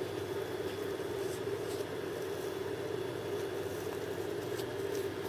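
Steady background hum, with a few faint light rustles of a strip of paper towel being handled.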